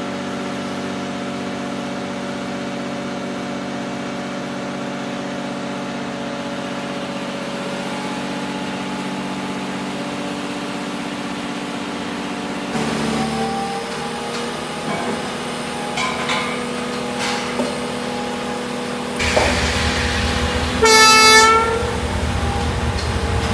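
Train sound: a locomotive engine runs steadily, its note changing about 13 s in and growing louder from about 19 s. A single short horn blast sounds about 21 s in.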